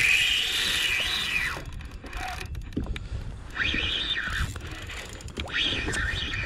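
Okuma Ceymar C65 spinning reel whining under load as a hooked bonito is fought. The whine comes in surges of about a second each, every one rising and then falling in pitch, with short gaps between them.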